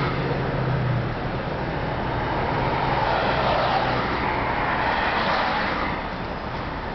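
Motor vehicle noise: a steady low engine hum under a rushing wash of road noise that swells in the middle and eases near the end.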